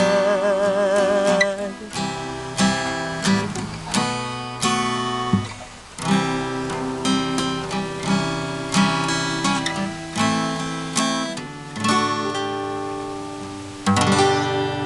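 Acoustic guitar playing the closing bars of a song. A held note with vibrato fades about a second and a half in, then comes a series of plucked and strummed chords, each ringing and dying away. A final strummed chord rings out near the end.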